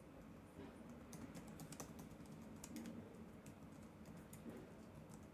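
Faint computer keyboard typing: a run of light key clicks at an uneven pace.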